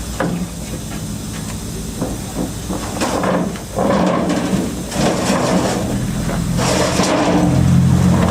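Several short bursts of hissing over a steady low mechanical hum, with the hum growing louder near the end.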